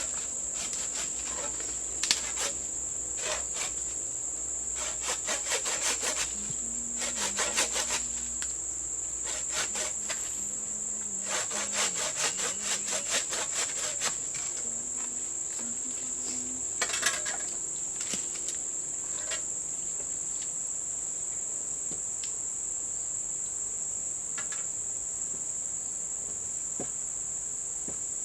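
A steady, high-pitched insect chorus, with several runs of quick wooden knocks and scraping in the first two-thirds from wooden poles being worked, dying away after that.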